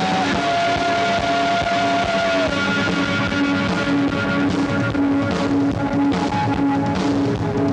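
Live rock band playing: electric guitar with long held notes over drum kit and bass, on a poor-quality, muddy live recording.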